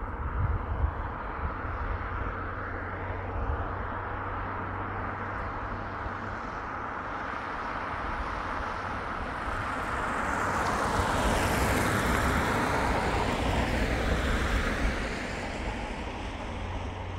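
A vehicle passing by: a steady rushing noise builds to its loudest about two-thirds of the way through, then fades.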